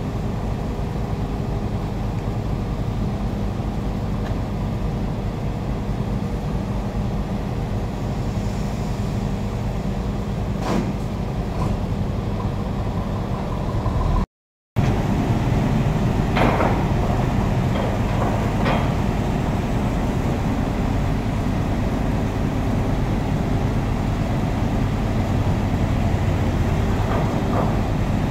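Heavy diesel engines running steadily at idle, from the trucks and the mobile crane, with a few short sharp knocks. The sound drops out for a moment about halfway at an edit.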